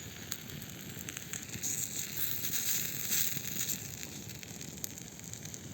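Campfire crackling with scattered sharp pops, and canned stewed meat with onion sizzling in a pan over it; the hiss swells about two seconds in and eases off again.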